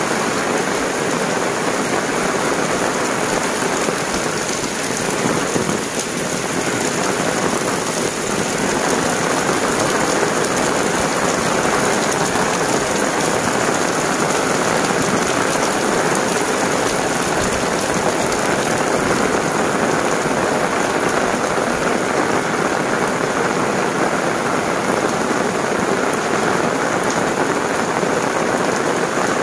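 Heavy rain pouring steadily onto paved lanes, wet ground and an umbrella held overhead.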